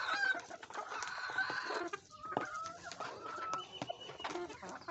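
Hens clucking, a few short calls scattered through, with light clicks and taps in between.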